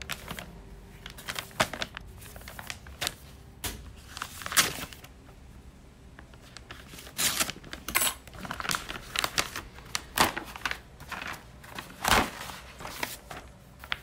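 A paper bid envelope being torn open and the papers inside pulled out and handled: irregular crinkling, tearing and rustling, with short louder scrapes every second or two.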